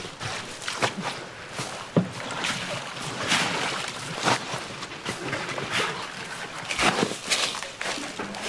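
Halved napa cabbages and coarse salt being handled by gloved hands while they are salted for kimchi: a run of crisp rustles, crunches and salt scatters, with a sharp knock about two seconds in.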